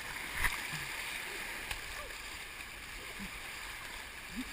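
Shallow river rapids rushing and gurgling steadily around a kayak, with a short paddle splash about half a second in.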